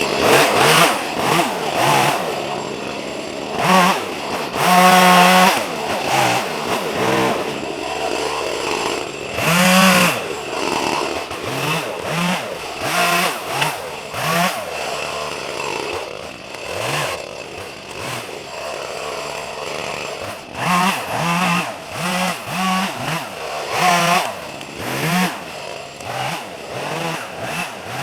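ECHO CS-310 two-stroke chainsaw cutting up a felled tree. The engine revs up to full speed and drops back toward idle again and again.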